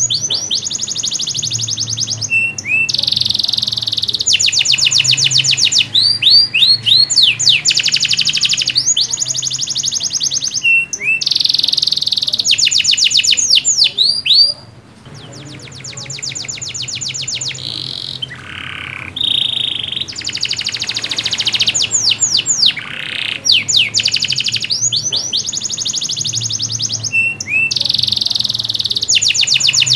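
Domestic canary in full song: long runs of very fast trills and rolls, broken up by sweeping chirp notes. The song drops away briefly about halfway through, then picks up again.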